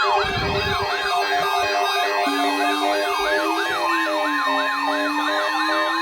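An electronic siren in a fast yelp, its pitch rising and falling about three to four times a second, over synthesized music with a steady pulse. A steady high tone joins about halfway through.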